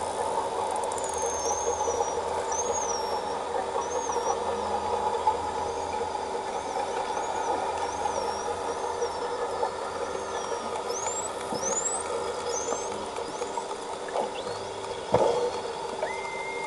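False killer whales whistling underwater: a string of short, arching high whistles, several quick rising sweeps around the middle, and a lower whistle near the end. A single sharp click comes about three-quarters of the way through, and a steady hum of even tones runs underneath.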